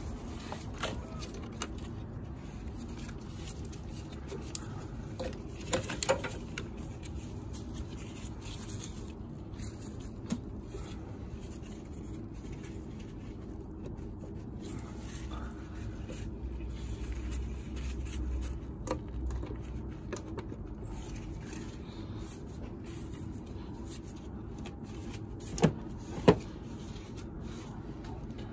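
Scattered light clicks and taps of hand tools and metal parts being handled on a car engine's valve cover, with two sharper clicks about half a second apart near the end, over a steady low hum.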